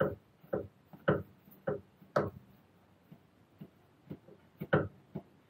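A run of sharp knocks, about two a second with a brief pause past the middle, as the new drive shaft is struck to drive it into the gearbox; the shaft's circlip has not yet snapped home.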